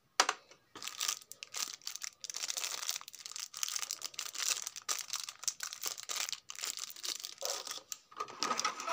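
Thin clear plastic bag holding a beard trimmer's comb guards, crinkling and rustling in the hands in dense, irregular crackles that run almost without a break.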